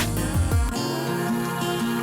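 Outro background music: guitar-led instrumental with strummed chords; a pulsing bass beat drops out under a second in, leaving the guitar.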